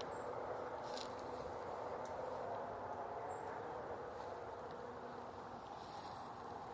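Steady outdoor background hiss with a faint insect buzz and a small click about a second in.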